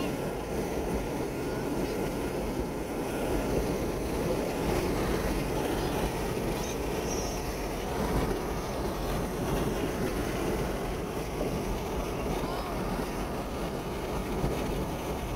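Steady road noise of a moving truck: tyres on the road surface and the engine, heard from inside the cab.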